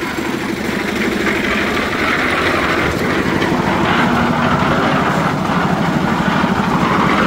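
Small engine of a drum concrete mixer running steadily with a rapid even pulse.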